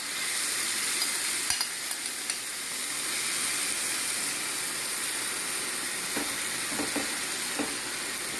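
Masala-coated prawns frying in hot oil in a nonstick pan, a steady sizzle that swells as they go into the pan, with a few light clicks from stirring.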